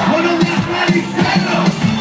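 Live Greek pop music played loud over a club sound system, with a steady beat.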